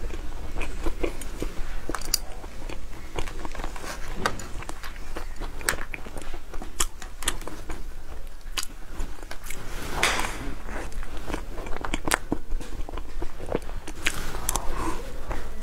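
A person eating chocolate cake from a spoon: chewing and mouth sounds, with many short sharp clicks scattered throughout.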